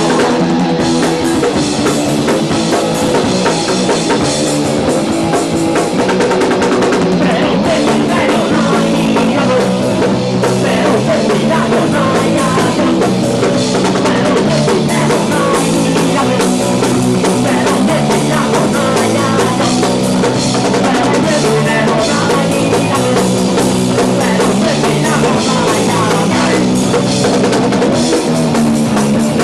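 Rock band playing live, with drums and electric guitar keeping a steady, loud beat.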